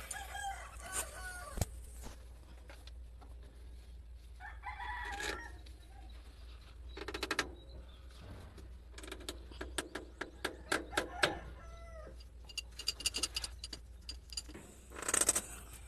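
Rooster crowing and chickens clucking, with a call about five seconds in and another near the end. A quick run of clicks and taps comes from about nine to thirteen seconds in.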